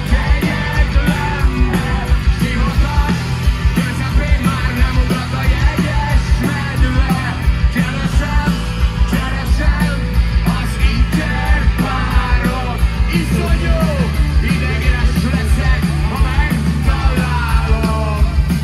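Live rock band playing loud, with a steady drumbeat, heavy bass and electric guitar, and voices shouting and singing over the music.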